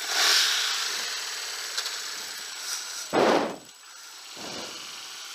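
Motorcycle on the move, its engine under a rush of wind noise on the microphone that swells as it pulls away and then eases. A heavy buffet of wind hits the microphone about three seconds in, and a smaller one about a second later.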